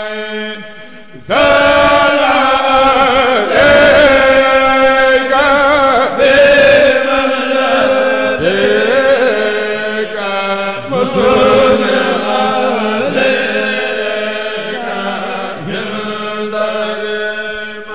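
A group of men chanting a Mouride khassida (kourel chanting) into microphones, unaccompanied voices only; the chant becomes suddenly louder just over a second in and carries on in long sung phrases.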